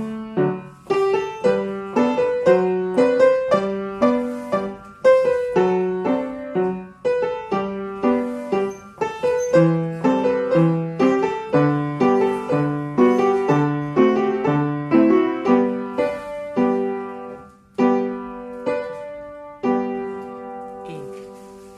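Piano playing ballet class accompaniment for a barre exercise: a steady run of notes at several per second, ending on a chord that is held and fades away near the end.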